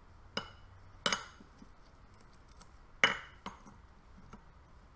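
Steel gears and bearing parts of a Formula Ford gearbox clinking as they are handled and set down. There are a few sharp metallic clinks, each with a short ring, the loudest about a second in and again about three seconds in.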